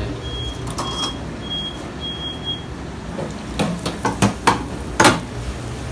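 A fryer timer beeping: a short, high beep repeating about one and a half times a second over a low steady hum, stopping about two and a half seconds in. It is followed by a few sharp metal clanks of steel tongs against wire fryer baskets, the loudest near the end.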